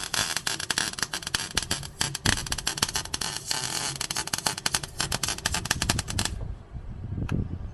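Electric arc welder crackling steadily as a bead is run around a pipe joint on a stainless truck muffler, stopping about six seconds in. A single short tick follows about a second later.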